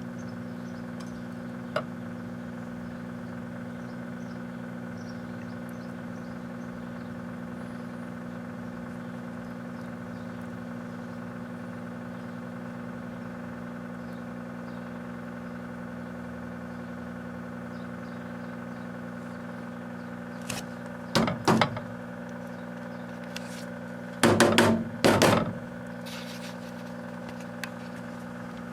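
Microwave oven running with a steady hum. A few short, loud noises break in twice, about twenty and about twenty-four seconds in.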